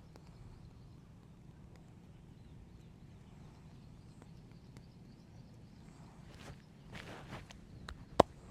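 Head massage by hand: a few faint light taps and a short stretch of rubbing over a steady low hum, then one sharp, loud smack near the end.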